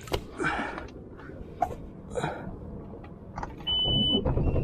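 Heavy breathing, then a short high beep as the boat's outboard motor is started near the end and begins running with a steady low rumble.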